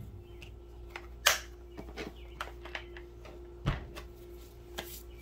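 A plastic ammo can being handled on a rubber mat: a few sharp clicks and knocks of its lid, latches and handle, the loudest about a second in and another near four seconds, over a faint steady hum.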